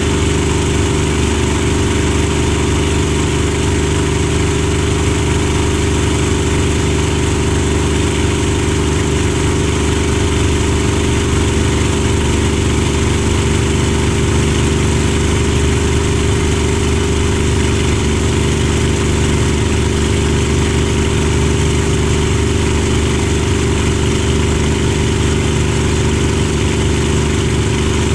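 A Spitfire's Rolls-Royce Merlin V12 engine running steadily, a loud, even drone that holds the same pitch throughout.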